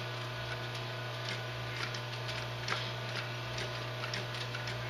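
Industrial walking foot sewing machine turned slowly by hand at its handwheel, stitching leather: light mechanical clicks about twice a second as each stitch forms, over a steady low hum.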